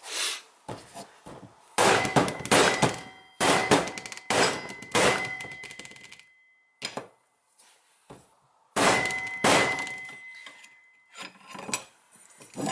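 Mallet blows driving a Fel-Pro rear main seal into a 6.7 Cummins' cast aluminium rear seal housing, each strike ringing in the metal. The blows come in quick runs of several, with two short pauses in between, as the seal is worked in little by little around its edge.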